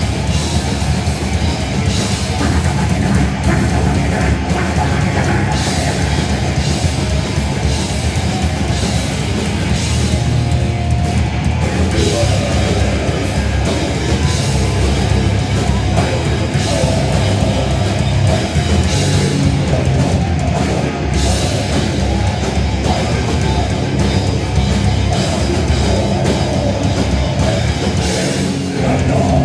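Grindcore band playing loud live: heavily distorted electric guitars and drum kit, with a vocalist on the microphone.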